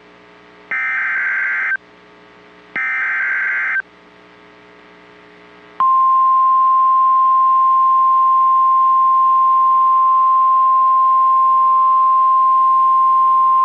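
NOAA Weather Radio EAS alert: the last two bursts of the SAME digital header, each a harsh warbling data screech about a second long with short gaps between, then, about six seconds in, the steady single-pitch warning alarm tone starts and holds. The alarm tone signals that a warning broadcast is about to follow.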